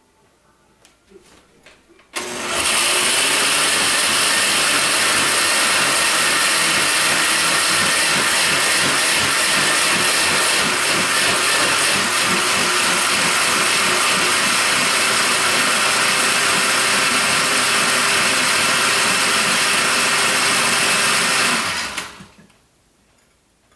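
Countertop blender with a glass jar starting suddenly about two seconds in and running steadily at one speed for about twenty seconds as it grinds chopped vegetables fine, then switching off and winding down near the end.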